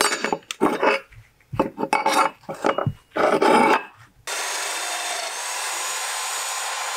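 Irregular rasping strokes, like filing or rubbing on a workpiece. About four seconds in, a steady power-tool whir starts abruptly.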